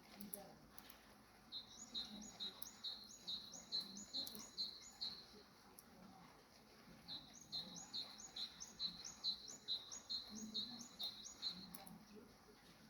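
A small bird calling in two runs of short, repeated chirps, about three a second; the first run starts a second and a half in and stops about five seconds in, and the second starts about seven seconds in and runs for about five seconds.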